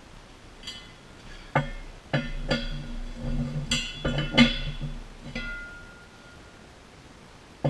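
Steel parts clinking and knocking together: a homemade welded-pipe wrench being fitted over a hydraulic cylinder's end. There are several sharp strikes at uneven intervals, each with a metallic ring after it, and one leaves a clear high ring about five and a half seconds in.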